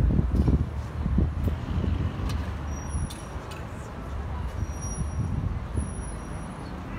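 Steady low rumble of outdoor urban background noise, like distant traffic, with faint voices in the first second or so and a few light clicks.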